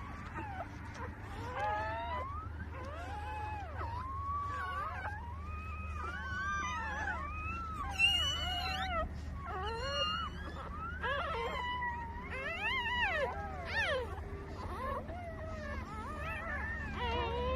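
Newborn puppies squealing and whining: many short calls that rise and fall in pitch, several overlapping at once, over a steady low hum.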